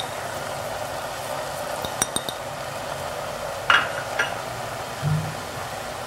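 Calf's feet and onions frying in oil under chickpeas in an aluminium pot, sizzling steadily. A few light clinks of a utensil against the pot come about two and four seconds in, and a soft knock comes near the end.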